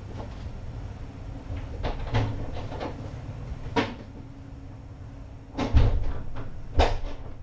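A door being handled and shut: a run of light knocks and clicks, then two heavier thumps about a second apart near the end.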